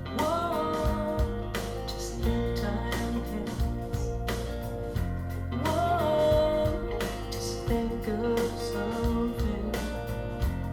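A song played back through JBL Studio 220 mini monitor speakers: a steady bass line, guitar and drums, with a voice singing two long gliding phrases, one just after the start and one about six seconds in.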